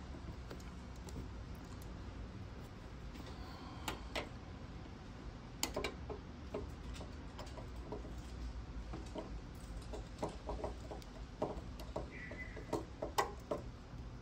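Scattered small metal clicks and ticks of fiddly hand work on an MG TD petrol cap, as a small screwdriver and fingers fit a tiny screw and nut into the cap's trigger-release hinge. The clicks are irregular and bunch up in the second half, over a low steady background hum.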